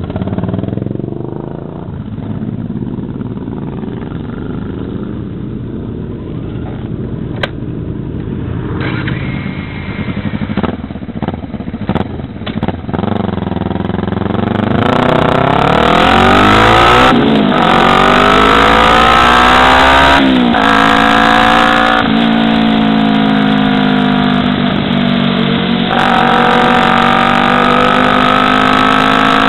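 Kawasaki Ninja 250R parallel-twin motorcycle engine running at low speed, then accelerating about halfway through. Its pitch rises and drops twice as it shifts up through the gears, then holds steady at cruising speed with wind rushing past.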